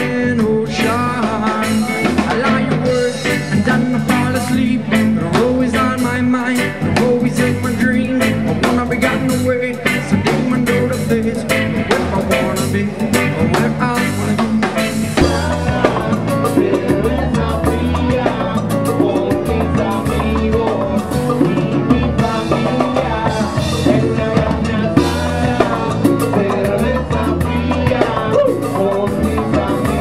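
Live band music through a PA: electric guitar, keyboard and drum kit. About halfway through it cuts to another band with congas and a heavier bass beat.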